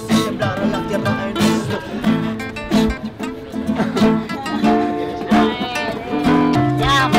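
Music led by acoustic guitar, plucked and strummed notes.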